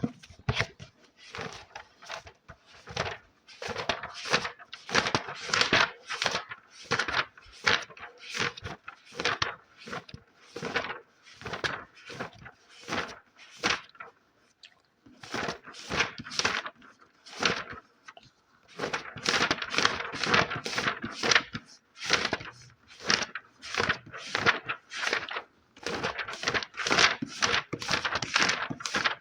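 Close-miked ASMR scratching: quick, rhythmic rasping strokes, a few a second, with short pauses about midway and again a few seconds later.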